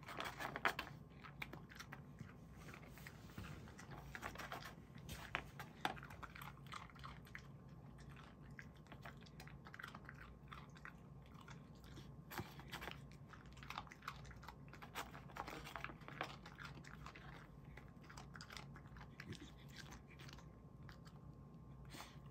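A Pembroke Welsh corgi chewing small bone-shaped dog treats off a paper plate: a string of short bites, close together at first and thinning out toward the end as the plate empties.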